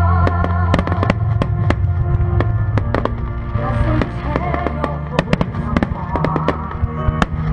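Fireworks bursting: many sharp bangs and crackles, coming thickest in the second half, over loud music playing throughout.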